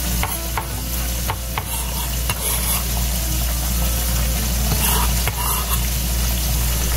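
Chopped parsley and scallions sizzling steadily in hot oil in a nonstick skillet while being stirred, with a few sharp clicks scattered through.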